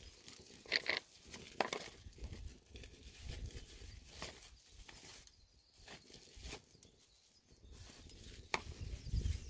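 Plastic food wrapping being slit with a knife and peeled off, crinkling and tearing in short, scattered bursts, with small clicks of the knife and plastic against a plastic plate.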